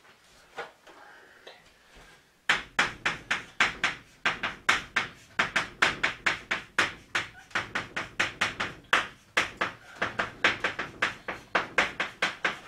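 Chalk writing on a blackboard: a quick string of sharp taps and short scrapes, about three or four a second, one for each stroke of the characters. It starts about two and a half seconds in, after a quiet start.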